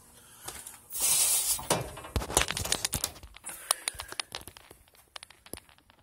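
Handling noise: a short loud rustle about a second in, then a run of irregular clicks and knocks that grow sparser toward the end.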